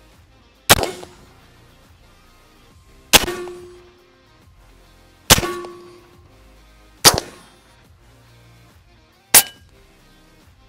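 Five sharp shots from big-bore PCP air rifles, one to two seconds apart, each with a short fading echo. A brief ringing tone follows two of them.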